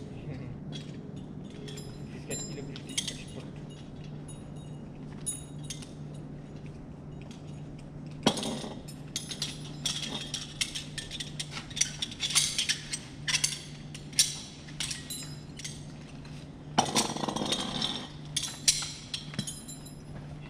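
Metal climbing-harness hardware (carabiners, buckles and rings) clinking and clicking as safety harnesses are handled and put on. The clicks are sparse at first and come thick and irregular in the second half. A steady low hum runs underneath.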